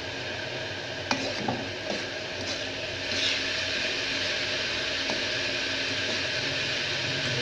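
Chopped cauliflower sizzling as it fries in oil in a steel wok, with a metal spatula clicking and scraping against the pan a few times in the first few seconds. The sizzle grows a little louder about three seconds in and stays steady.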